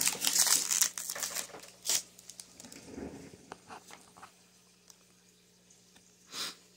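Foil wrapper of a Pokémon card booster pack crinkling as it is torn open, loudest in the first two seconds. After that come quieter scattered ticks of cards being handled, and a short rustle near the end.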